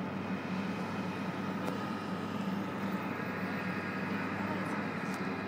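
Steady low drone of city traffic, with a few faint ticks over it.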